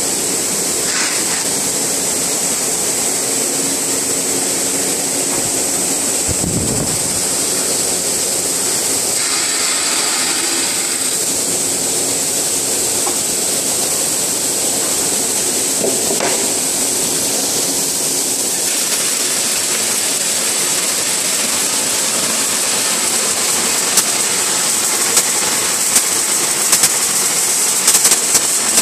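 CCD optical colour sorting machine running: a steady hiss with a high-pitched whine and a low hum. Sharp clicks come in from about 24 seconds in.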